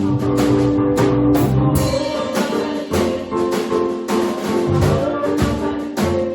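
Live band music with a steady drum beat under held chords and a bass line.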